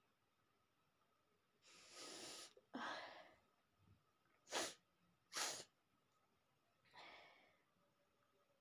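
A person sneezing twice in quick succession, about a second apart. Two long breaths come before the sneezes and a softer breath follows them.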